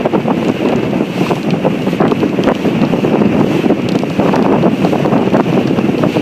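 Wind buffeting the microphone on a moving boat, loud and steady, over the rushing noise of the boat under way on the water.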